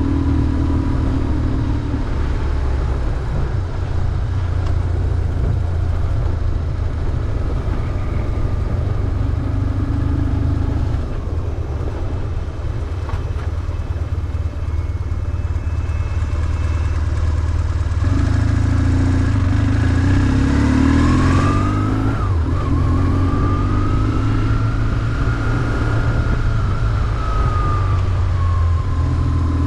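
BMW R1150GS motorcycle's flat-twin boxer engine under way, its pitch rising and falling with the throttle; the revs climb about two-thirds of the way in, then ease off.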